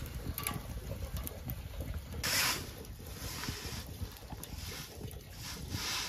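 Fire burning in a small fire pit, with scattered crackles and a short hissing rush about two seconds in, over a low rumble of wind on the microphone.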